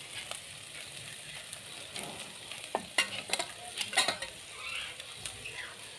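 Masala frying in a pan with a soft, steady sizzle, and several light clicks in the middle as tomato pieces are cut and dropped onto a steel plate.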